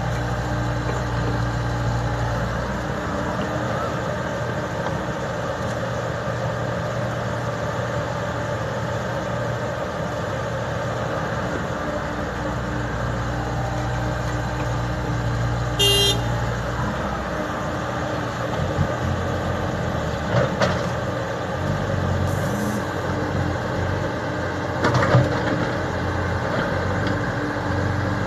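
Komatsu PC70 hydraulic excavator's diesel engine running steadily while digging, its note shifting as the load changes. A short high-pitched squeal sounds about sixteen seconds in, and a few sharp knocks come in the last third.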